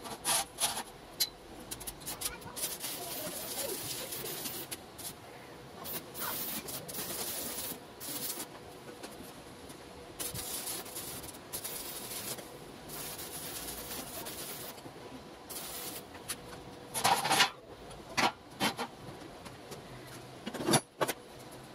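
Electric arc welding on square steel tubing: the arc crackles and sizzles in several tack-weld bursts of a few seconds each, with short pauses between. A few sharp metal knocks come near the end.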